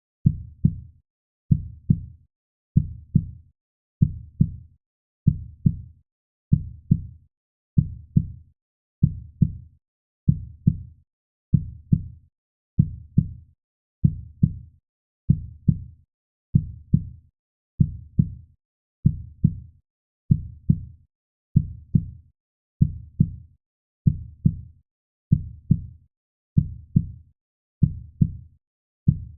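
A slow, steady heartbeat: deep double thumps, lub-dub, repeating evenly just under once a second.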